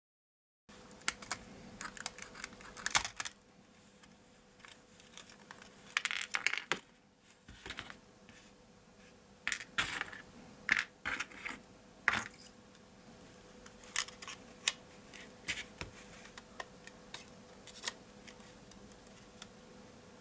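Irregular small clicks, snaps and light taps of a Sony DSC-W830 compact camera's metal and plastic casing parts being pried apart and handled, with a faint steady hum underneath.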